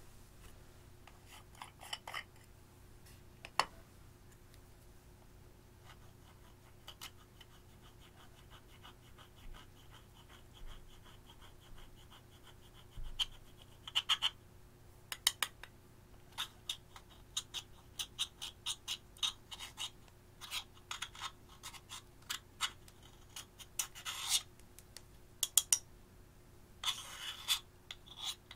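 Thin metal tool scraping pressed eyeshadow out of its metal pan: quick, irregular scratching strokes, a few at first and many more in the second half.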